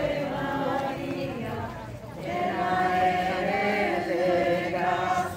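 Many voices chanting a rosary prayer together in unison, in held notes, with a short break about two seconds in before the chant resumes louder.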